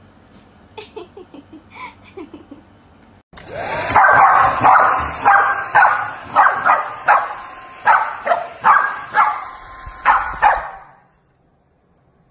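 A corgi barking over and over, about a dozen sharp barks, at a hand-held hair dryer blowing at it. The dryer's steady hiss starts suddenly about three seconds in and cuts off near the end. Before that, a husky puppy gives a few faint short yips.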